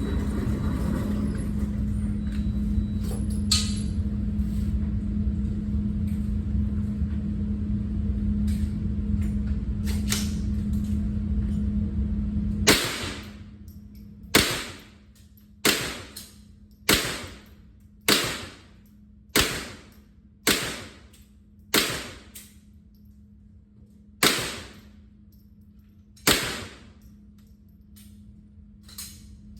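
A steady hum, then about halfway through a firearm fires single shots: about ten sharp reports roughly a second apart, with slightly longer gaps near the end.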